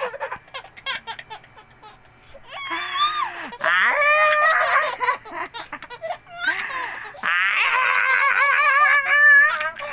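Baby laughing in two long bouts of high laughter with a pitch that wavers up and down, the first starting about three seconds in, the second about six and a half seconds in.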